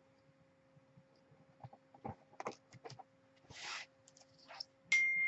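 Faint clicks and rustles of trading cards being handled and sorted, then, near the end, an electronic chime: one high steady tone that starts abruptly and rings on.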